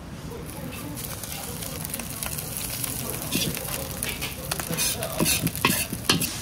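Fried rice sizzling in a hot wok while a metal ladle scrapes and scoops it out. Sharp clinks and scrapes of ladle on wok come more often in the second half.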